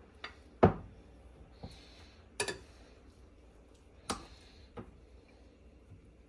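Metal kitchen tongs clacking against a bowl and an air fryer's wire mesh basket as marinated chicken drumsticks are lifted out and set down: about six sharp clicks spread over several seconds, the loudest a little over half a second in.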